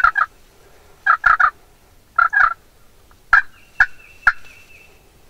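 Wild turkeys calling close by: short groups of two or three sharp notes about once a second, then single sharp notes, with a faint, steady, high wavering trill near the end.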